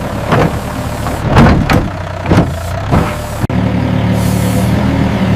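Mini excavator engine running steadily, with several short scrapes and knocks as the bucket cuts into the ground. The sound drops out for an instant about three and a half seconds in, then the engine hum carries on louder and steadier.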